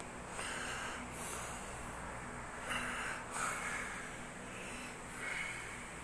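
About five short, noisy puffs close to the microphone, like breaths, over a faint steady hum.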